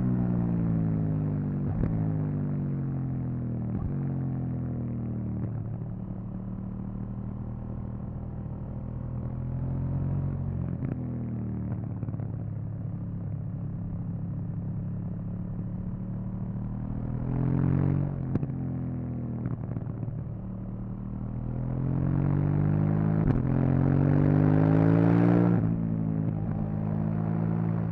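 KTM 790 Duke's parallel-twin engine on its stock exhaust, heard from the rider's seat: revs falling at first as the bike slows from high speed, running steadily at low revs, then rising in pitch under acceleration twice, about two-thirds of the way in and again near the end, before the throttle closes.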